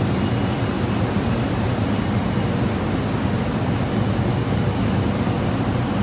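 Steady low background hum of machinery, even throughout with no distinct events.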